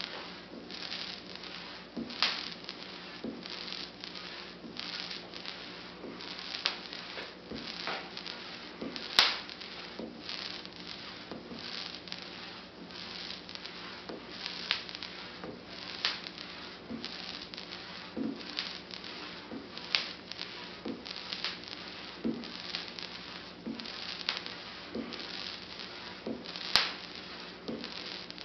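Leyden jar with a watermelon as its electrode, sparking: a steady run of small crackling snaps, about two a second, with two much louder, sharp spark cracks, one about nine seconds in and one near the end.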